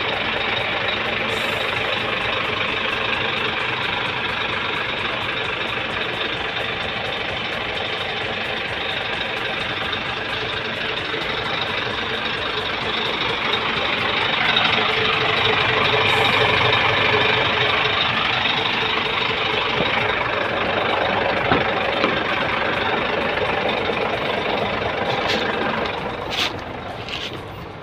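Scania P410 truck's diesel engine idling steadily, a little louder about halfway through. Near the end the engine sound drops away and a few sharp clicks and knocks are heard.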